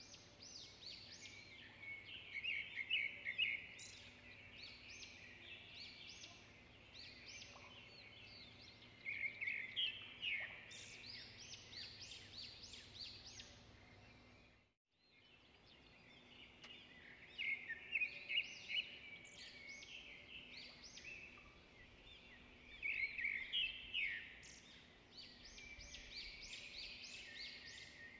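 Small birds chirping and trilling in quick clusters of high notes. The sound cuts out briefly about halfway through, then starts again.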